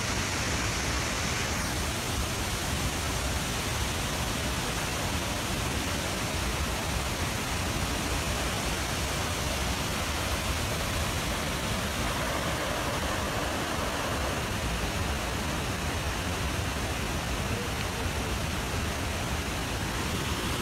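Snowmelt mountain stream rushing over boulders: a steady, unbroken wash of whitewater.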